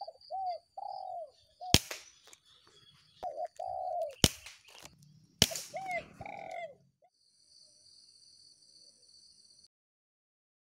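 Doves cooing in repeated phrases of short, arching notes, broken three times by the sharp crack of an air rifle shot. Near the end a faint, steady high-pitched tone takes over, then it goes quiet.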